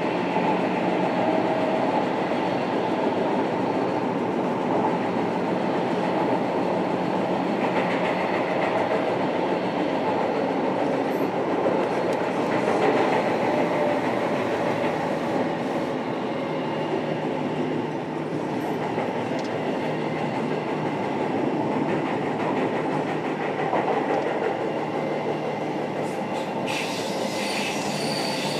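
Onboard running sound of a JR Kyushu 305 series electric train, recorded inside motor car MoHa 305-5, which has Toshiba permanent-magnet synchronous traction motors: steady wheel-on-rail noise with a steady low tone. A high squeal joins near the end.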